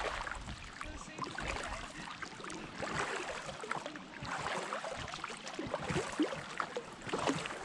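Oars dipping and pulling through the water as an inflatable boat is rowed, with a splash and swirl about every second and a half.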